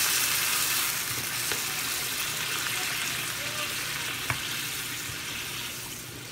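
Brinjal and green pea curry sizzling in a hot pan where water has just gone in, stirred with a wooden spatula. The hiss slowly dies down, with a single sharp click about four seconds in.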